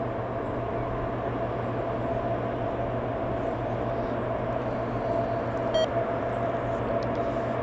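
Steady drone of idling airfield ground machinery, a constant low hum with a faint higher whine above it.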